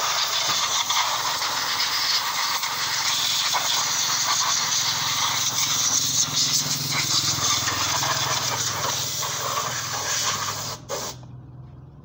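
Compressed-air spray gun with a red canister hissing steadily as it sprays a motorcycle's engine and chain during servicing, with a low hum underneath. The hiss cuts off near the end.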